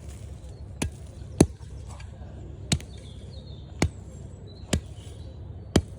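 Six sharp smacks about a second apart: a shovel slapping down on loose dirt to pack a bike jump.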